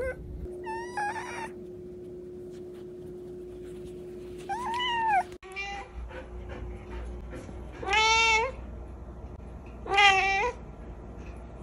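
A cat meowing four times: two shorter meows in the first half, then two louder, longer meows near the end.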